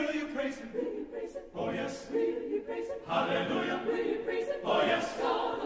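A mixed choir singing a slow piece in several long, held phrases.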